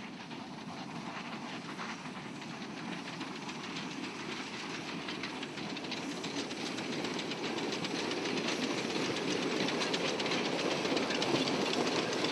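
Small narrow-gauge steam locomotive running past with a train of open passenger coaches: a fast, dense rattle of beats from its exhaust and running gear, with hiss, growing steadily louder as it draws near.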